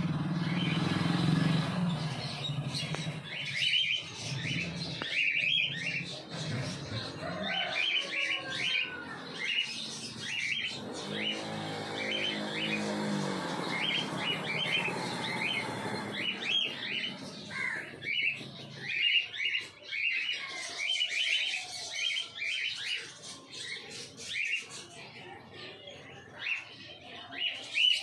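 Birds chirping: runs of short, high calls repeated throughout. A low rumble sits under the first couple of seconds, and a low, steady-pitched hum comes in about eleven seconds in and stops about two seconds later.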